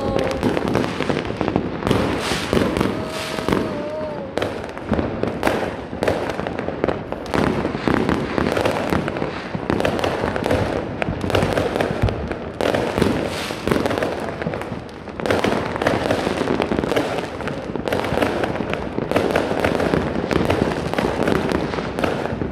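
Many fireworks and firecrackers going off at once all around: a dense, unbroken crackle of overlapping bangs and pops.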